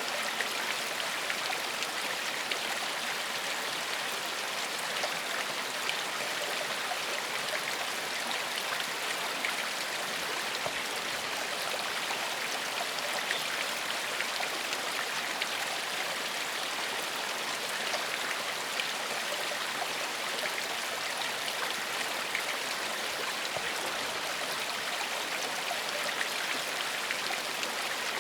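A gentle forest stream flowing steadily: an even, unbroken rush of running water with fine splashing.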